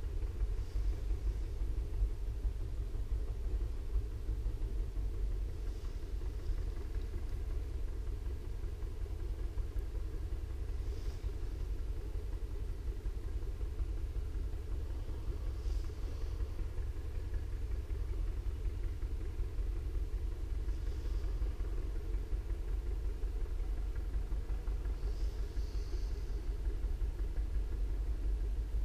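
Steady low wind rumble on the microphone by the open water, with faint short high chirps about every five seconds.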